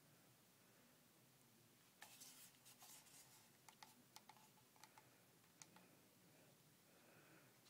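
Near silence, with a run of faint, sharp clicks and a light rustle from about two seconds in until a little past the middle.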